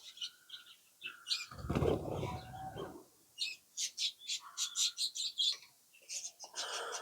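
Budgerigar chick chirping during hand-feeding, a run of quick, short, high peeps. A rustle of handling sounds about two seconds in.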